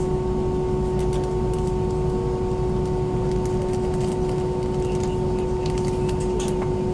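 Steady hum with a constant whine inside the cabin of an Airbus A320 parked at the gate: the aircraft's air-conditioning and ventilation running before engine start. A few faint clicks and taps from the cabin come about a second in and again near the end.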